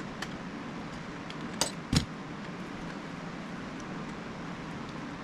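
A few light metallic clinks from a 1970 Chevelle door hinge being worked with a new pin and a clamp while the pin is lined up, the two sharpest close together about a second and a half in, over a steady low hum.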